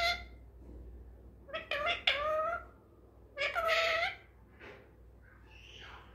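Pet ringneck parakeet calling three times, each call rising briefly and then holding its pitch, about a second and a half apart, with faint softer sounds after the last one.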